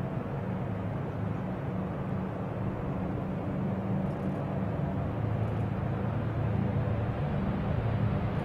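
Lockheed L-1049 Super Constellation's four Wright R-3350 radial piston engines and propellers at take-off power on the runway roll, a steady low drone that grows slowly louder as the airliner comes closer.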